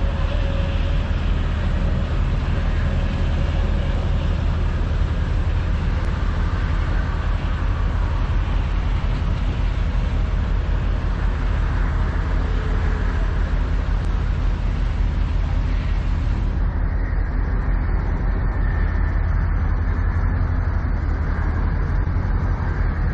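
A tractor-trailer rolls slowly past at close range, with a steady deep rumble from its diesel engine and tyres.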